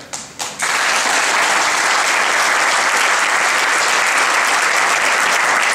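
Audience applauding: a few scattered claps, then about half a second in the whole crowd breaks into steady, loud applause.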